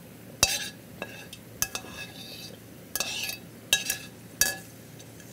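Metal spoon clinking and scraping against a stainless steel frying pan as fried garlic is scooped out of the oil, about six strikes that each ring briefly, one in the middle drawn out into a scrape.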